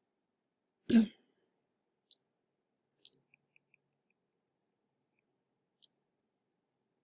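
One short, loud burst about a second in, then a few faint, scattered clicks of a stylus tapping on a tablet screen.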